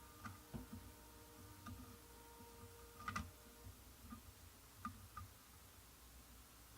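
Near silence with a few faint, sharp clicks and taps, the clearest about three seconds in: small tool and hand contacts while a battery terminal inside a plastic toy is being soldered.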